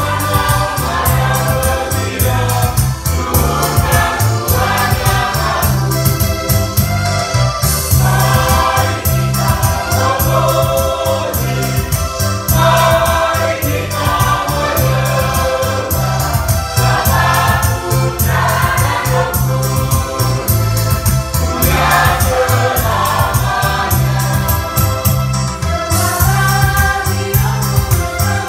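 Amateur mixed choir of young women and men singing a church hymn together at rehearsal, the voices sustained and phrased continuously.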